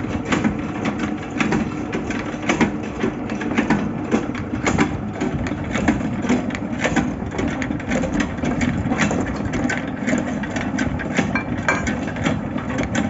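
A machine running steadily, with frequent irregular clicks and knocks over it.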